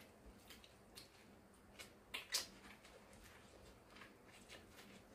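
Faint, scattered clicks and small wet snaps of people biting kernels off steamed corn on the cob and chewing, the loudest pair a little over two seconds in.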